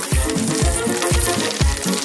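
Dry dog-food kibble pouring from a plastic bag and clattering onto a cake, over background music with a steady beat.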